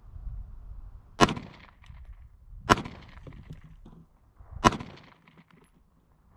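Three single shots from an FN 509 Tactical 9mm pistol, fired slowly about one and a half to two seconds apart, the first about a second in.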